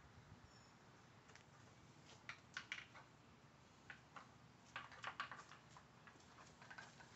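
Plastic flip tabs and sliders of a Dog Brick puzzle feeder clicking and clacking as a puppy noses and paws at them, in faint, irregular clusters of taps.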